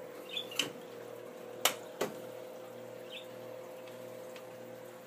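Steady hum of a powered-on TRS-80 Model II computer's cooling fan and power supply, with three sharp clicks in the first two seconds and a couple of faint high chirps.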